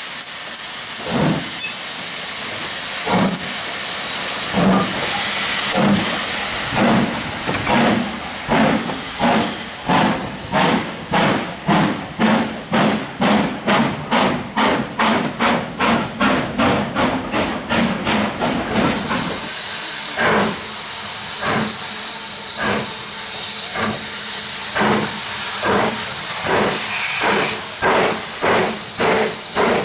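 LMS Black Five 4-6-0 No. 45337 pulling away with a train: its exhaust beats start slow and quicken steadily to about three a second. After a cut, BR Standard 9F 2-10-0 No. 92203 is working a train, its exhaust beating about twice a second over a steady hiss of steam.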